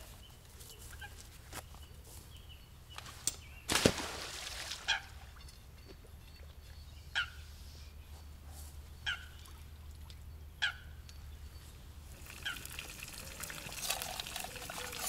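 Lake water splashing and sloshing about four seconds in as a carp is let go from a weigh sling at the water's edge. A bird gives short calls every couple of seconds.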